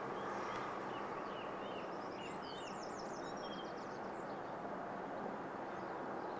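A songbird chirping, with a quick trill, in the first half, over a steady hum of distant road traffic.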